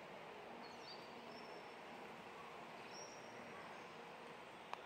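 Faint, steady background hiss of a quiet railway station platform, with a few short, high chirps and one sharp click near the end.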